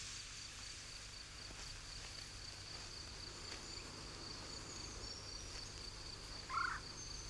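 Insects trilling, a steady high pulsing drone with faint higher chirps, and one brief lower call about six and a half seconds in.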